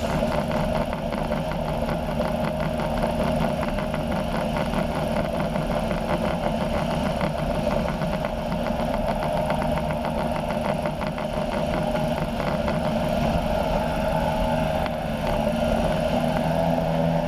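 Weight-shift trike ultralight's engine and pusher propeller running steadily in flight. The note shifts slightly near the end.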